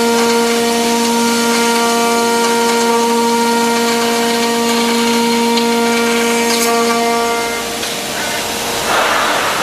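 Mecal CNC machining centre for aluminium profiles running, with a steady whine that stops about eight seconds in, followed by a short rush of noise near the end.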